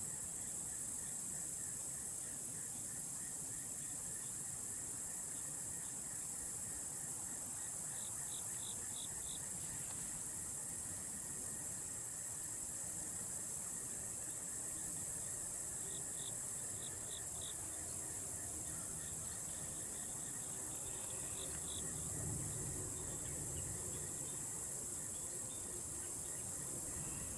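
Steady high-pitched drone of an outdoor insect chorus, with a short run of quick chirps breaking in three times.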